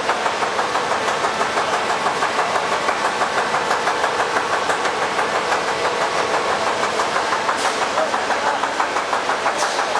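Plastic cap molding machine running, its electric motor and hydraulic pump unit giving a steady mechanical clatter that pulses about six times a second.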